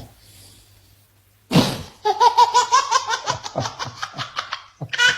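A baby laughing in a quick run of short, high-pitched giggles, about five a second, starting about two seconds in just after a brief sharp sound.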